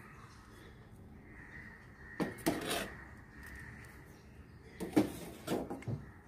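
Metal spoon scraping and knocking against a steel saucepan while stirring milk that has split into curds and whey. There are a few short scrapes about two seconds in and several more near the end, over a faint steady hiss.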